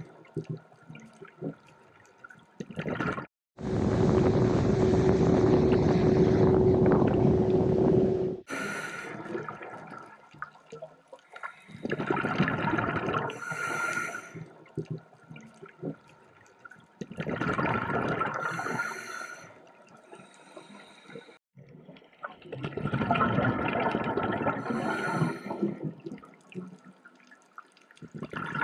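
Scuba regulator breathing heard underwater: bubbling, rushing exhalations every four to five seconds. A louder, steadier rush with a low hum runs from about four to eight seconds in and cuts off abruptly.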